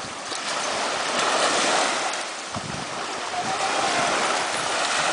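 Sea waves washing onto a beach: a steady hiss of surf that swells and eases.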